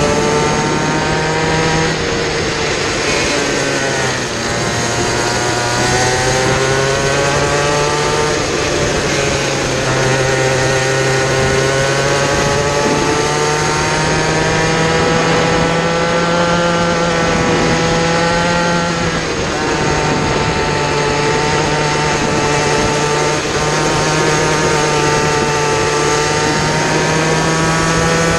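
A kid kart's small engine heard from on board at racing speed, its pitch climbing along the straights and dropping back into the corners several times, over steady wind and road noise.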